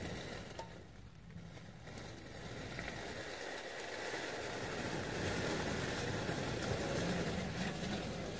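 Traxxas TRX-4 RC crawler's electric motor and geared drivetrain running, growing louder as the truck comes through a pipe culvert toward the microphone.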